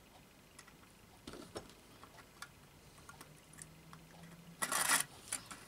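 Faint clicks and taps of fingers handling a small plastic model wagon and its brass coupling plate, with a short scraping rustle a little before the end.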